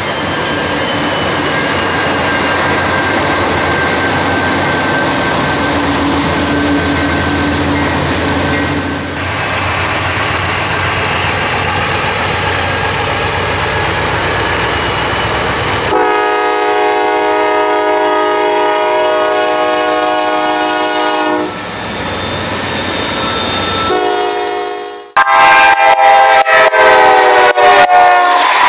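Norfolk Southern diesel freight locomotives passing close by, with a steady heavy rumble of engines and wheels on the rails. About two-thirds of the way through, a locomotive air horn sounds one long steady blast of several seconds. Near the end the horn blows again over loud sharp crackling.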